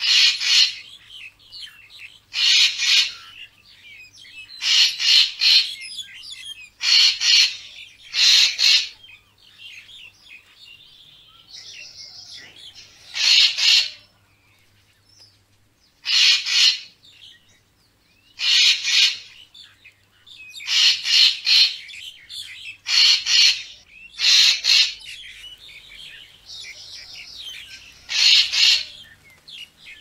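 Racket-tailed treepie calling: loud, harsh calls repeated every couple of seconds, some single and some in quick runs of two or three, with softer chattering notes between them.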